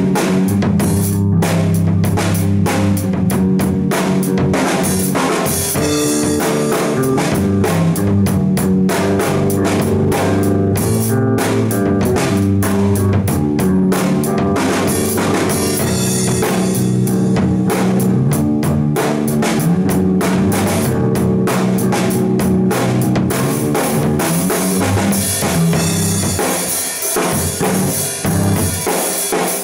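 A band jamming: a drum kit keeps a steady beat under held, changing chords, and the low notes drop away briefly near the end.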